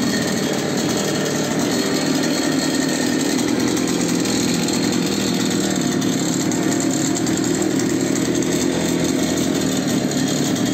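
Small two-stroke brush-cutter engine running steadily on a homemade motorized potato hiller.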